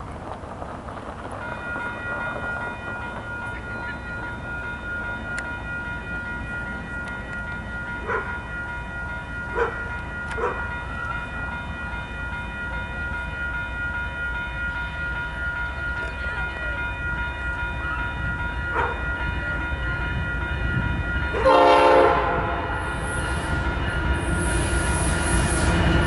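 GE ES44AC locomotive's multi-note air horn sounding one long held chord, growing louder as the train approaches. About 21 seconds in it blasts loudest and cuts off, and the rumble of the passing locomotives takes over.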